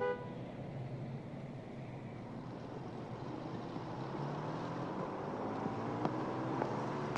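Street traffic ambience: a steady wash of passing cars, with a few light clicks near the end.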